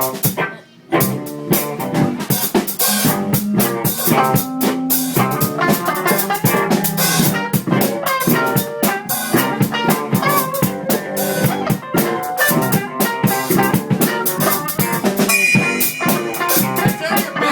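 A rock band playing with a drum kit and guitar during a sound check, with steady drum hits throughout. The playing stops for a moment about half a second in, then carries on.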